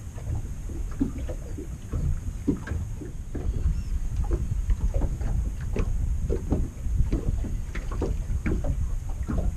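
Small waves slapping and lapping irregularly against a boat's hull, several splashes a second, over a steady low rumble of wind buffeting the microphone.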